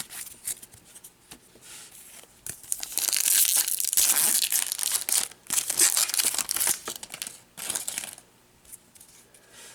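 A baseball card pack's wrapper being torn open and crinkled by hand: a few light handling clicks, then a long stretch of tearing and crinkling from about two and a half seconds in, fading out near the end.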